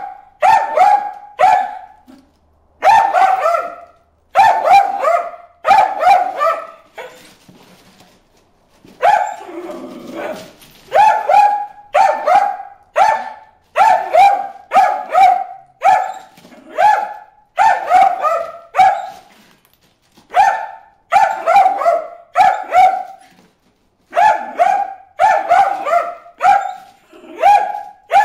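Dog barking over and over in a quick run of short, sharp barks, about one to two a second, with a few brief pauses.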